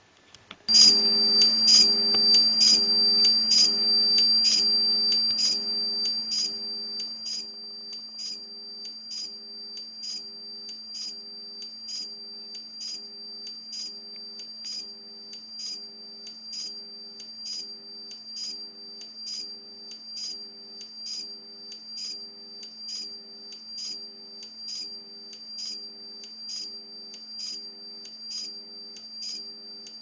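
Homemade ZVS oscillator and high-voltage transformer driving a magnetron, giving a high-pitched whine over a low hum, noisy because the oscillator runs in the audio range. It switches on suddenly about a second in, with a regular pulsing tick about one and a half times a second, loud at first and settling quieter after about six seconds.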